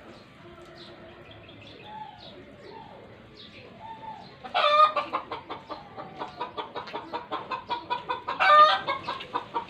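Hen cackling its egg song, the call a hen gives when she has just laid: a fast run of clucks, about three or four a second, starting about four and a half seconds in. Two louder squawks stand out, one at the start of the run and one near the end. Faint bird chirps that glide up and down come before it.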